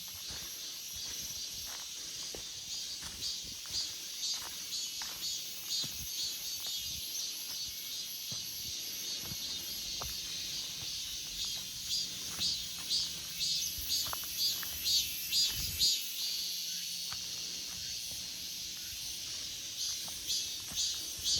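Cicadas singing in chorus: a steady high drone with one song pulsing about twice a second, swelling louder around the middle and again near the end.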